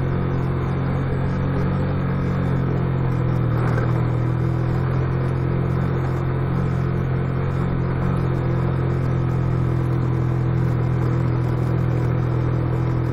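Motorcycle engine running at an even, steady speed, heard from on board as a constant low hum with the rush of the ride behind it.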